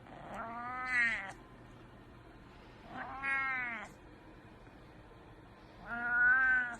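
Domestic cat meowing three times, each meow about a second long, rising and then falling in pitch.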